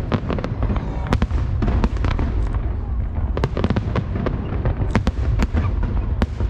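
Fireworks display: aerial shells bursting in rapid succession, a constant low rumble broken by many sharp cracks and bangs several times a second.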